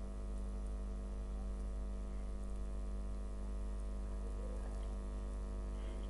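Steady low electrical hum with a constant stack of faint tones above it: the recording's background noise, with nothing else happening.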